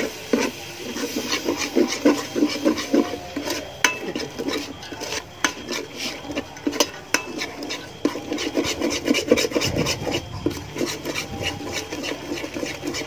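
A spoon stirring and scraping a thick mixture around a large aluminium cooking pot, in rapid repeated strokes with clicks of the spoon against the pot.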